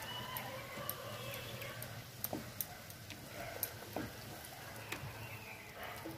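Kachori deep-frying in hot oil in a wok: a steady sizzle broken by several sharp, irregular crackles and clicks as the slotted spoon presses the puffing dough.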